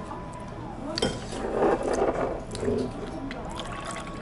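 Clinks and knocks of a stainless steel water jug and a small glass being handled on a restaurant table, then water starting to pour into the glass near the end.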